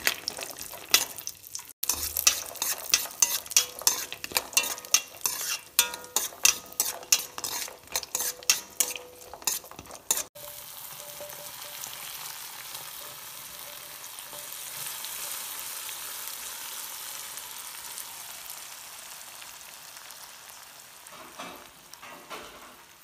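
Cashews and raisins frying in hot ghee in a steel pan, with a spoon stirring and scraping in quick repeated clicks over the sizzle. About ten seconds in the stirring stops abruptly and a steady sizzling hiss remains, fading toward the end.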